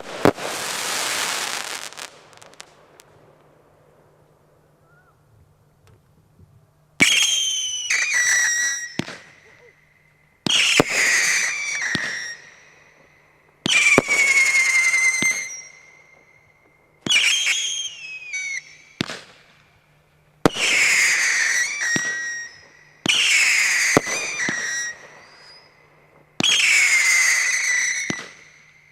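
Ammo Crate consumer fireworks battery firing. A hissing burst comes at the start, then a few seconds' lull, then about ten shots at one- to three-second intervals, each with a whistle that falls in pitch.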